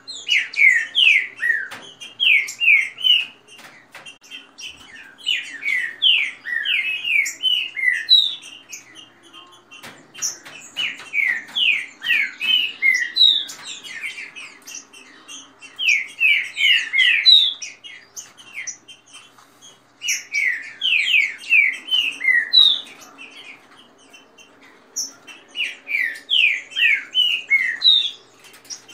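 Caged green-winged saltators (trinca-ferro) singing in fast phrases of quick, down-slurred whistled notes, a burst about every four to five seconds, with softer chirps in between.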